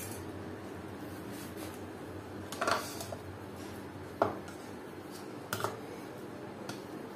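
A metal potato masher knocking and scraping against a ceramic plate while boiled potatoes are mashed, about four short clinks at uneven intervals, the sharpest a little past the middle, over a steady low hum.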